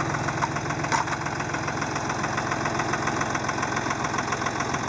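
Tractor engine idling steadily, with an even pulsing.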